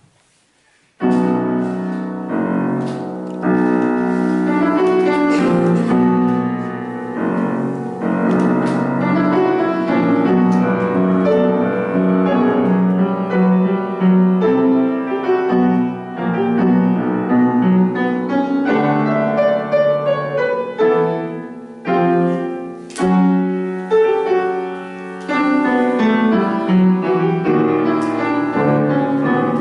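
Upright piano playing a funeral march in full chords, starting about a second in, with short breaks between phrases.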